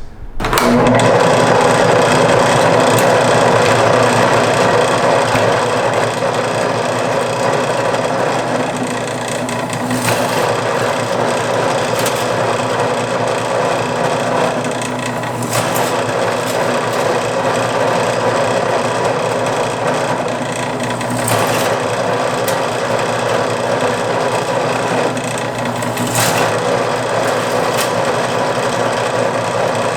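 A power tool running steadily in the workshop, with brief changes in its sound every few seconds.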